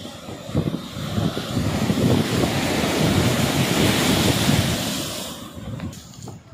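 Surf on a beach: a wave breaking and washing in, its hiss swelling to a peak about four seconds in and dying away near the end. Wind buffets the microphone with low rumbling gusts throughout.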